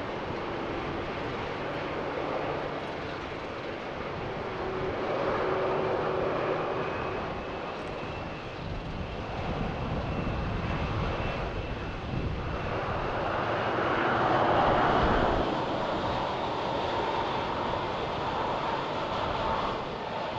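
Airbus A340-300's four CFM56 turbofan engines at taxi power: a steady jet rumble with a faint high whine. The sound swells twice as the aircraft taxis past, loudest about fourteen seconds in.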